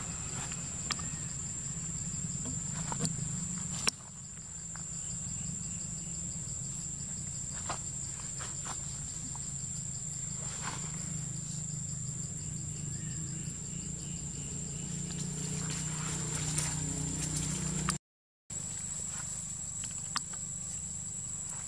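Steady high-pitched drone of insects in the forest, with a low background rumble and a few scattered sharp clicks.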